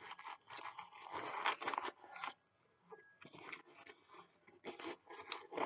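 Small gear being handled in a bag pocket: irregular rustling, scraping and small clicks as items are pulled out and turned over, with a brief pause about halfway through.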